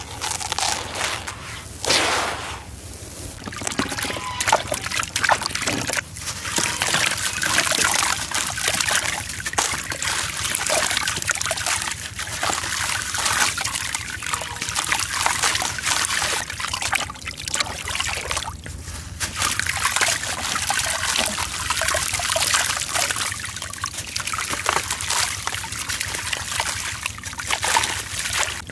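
Hand-crumbled sand-cement: dry grit pouring and crunching through the fingers at first, then wet chunks squeezed apart so that the grit trickles and splashes into water in a plastic tub.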